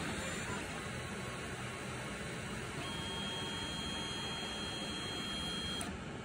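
3D printer running, its fans making a steady whirring noise. About three seconds in a steady high tone starts as the print head and bed travel away from the finished print; it holds for about three seconds and cuts off sharply, and the fan noise drops a little at the same moment.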